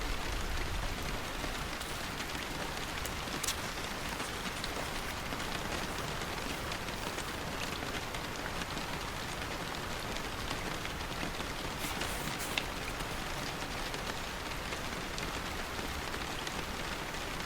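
Steady rain falling on a surface, an even hiss of drops, with a few sharper taps standing out: one a few seconds in and two close together later on.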